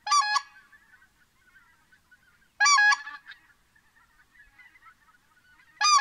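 Goose honking: three loud short bursts, each a quick run of a few honks, about three seconds apart, with fainter calling between them.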